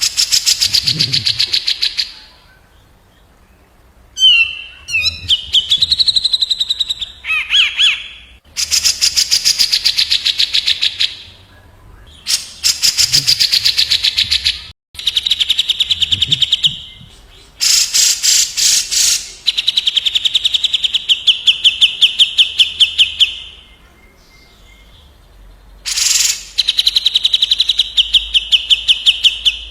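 Cucak jenggot and kapas tembak birdsong: loud, rapid rattling trills of about ten notes a second, in bursts of two to three seconds with short pauses between, and a few short gliding whistles in one of the gaps.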